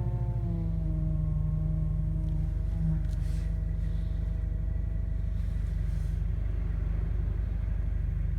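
Car engine idling with a moaning whine from the power steering pump that wavers in pitch and fades away about three seconds in, leaving the steady idle. The owner traced the noise to the pump cavitating.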